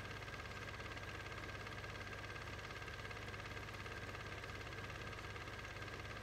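Steady, unchanging mechanical hum with a fine rapid flutter, with no race-car engine sound in it: the Standard 8 film has no sound track of its own.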